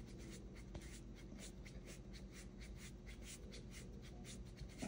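Faint, quick rhythmic rubbing: a hand rubbing briskly along skin, several strokes a second, to warm an arm up for a fever reading. A steady low electrical hum lies under it.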